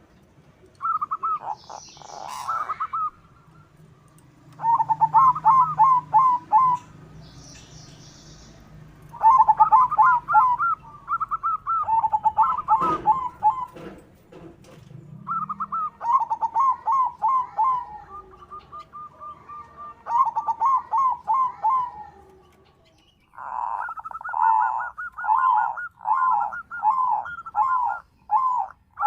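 Zebra dove (perkutut) cooing in bouts of rapid, clipped notes, the phrases repeated again and again with short pauses between. Near the end comes a longer, louder run.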